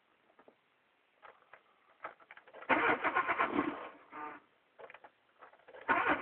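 A Mk3's 1.4-litre single-point-injection petrol engine being cranked on the starter in two short bursts of about a second each, one a little under three seconds in and one near the end, with a brief weaker burst between them.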